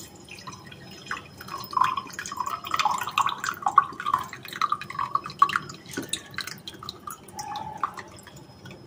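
Soak water draining off soaked sorghum grains from a steel bowl into a steel mug: an irregular trickle with drips and splashes, heaviest in the middle and thinning toward the end.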